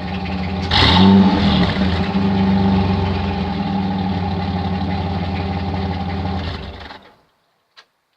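Dodge Dakota's 3.9-litre V6 running through a single exhaust tailpipe: a steady idle, a sudden blip of the throttle under a second in that leaves it running a little louder, then the engine stops about seven seconds in.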